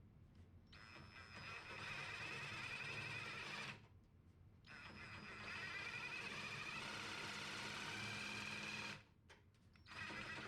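Small electric power tool running in two bursts of a few seconds each, with a steady high whine, then a brief burst near the end, cutting along a marked line.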